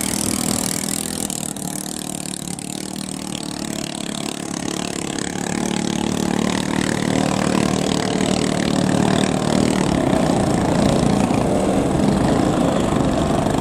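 Small longtail-boat engine running steadily on the river, its hum growing louder over several seconds and then holding level.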